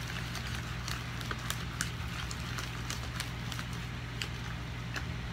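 Fingers mixing sticky glue-and-shaving-cream slime in a plastic bowl: scattered small clicks and sticky crackles, over a steady low hum.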